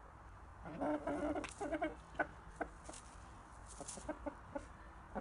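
Game rooster calling: a short run of harsh, pitched clucking calls starting about a second in and lasting about a second, followed by a few scattered sharp clicks.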